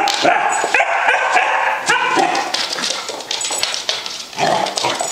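Basset hound puppy barking and yipping in a quick run of high calls, easing off around three seconds in and picking up again near the end.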